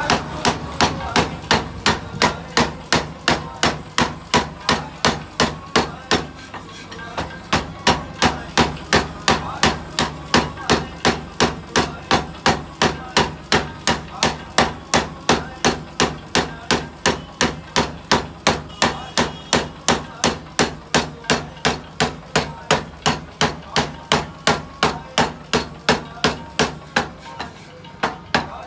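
Mechanical power hammer pounding a 50 mm iron rod with rapid, even blows, about three a second, over a steady low hum. There is a short break about six seconds in.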